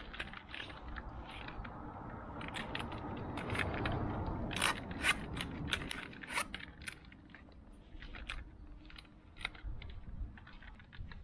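Corrugated plastic tubing being worked onto a solar panel's cable by gloved hands: irregular crackling and scraping with many small clicks, busiest in the first half.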